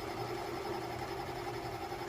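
Spinn centrifugal coffee maker running mid-brew: a steady, even motor hum.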